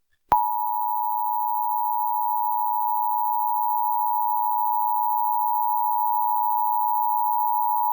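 Emergency Alert System attention signal: the 853 Hz and 960 Hz two-tone alert, starting a moment in and holding steady. It announces an EAS activation, here a required monthly test.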